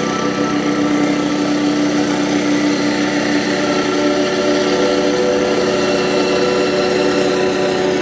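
Small rice combine harvester's engine running steadily as it cuts through standing rice, a constant drone with several held tones.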